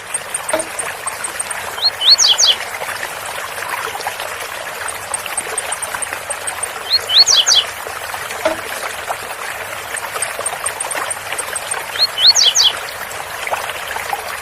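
Blue-black grassquit (tiziu) singing its short 'Zel Zel' song phrase, repeated three times about five seconds apart, each phrase a quick cluster of sharp rising and falling notes, with a run of faint very high ticks between phrases. A waterfall runs steadily underneath.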